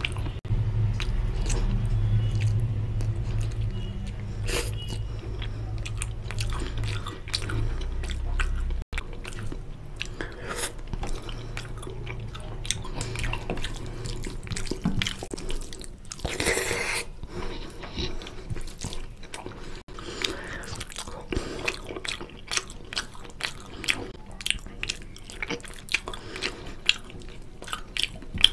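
Close-up chewing and wet mouth clicks of a person eating rice and fish curry by hand, with fingers squishing rice and gravy together on a plate. A low hum runs underneath for the first third and cuts off suddenly.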